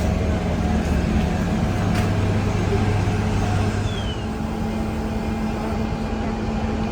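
Heavy diesel engines of fire apparatus running steadily with a low hum.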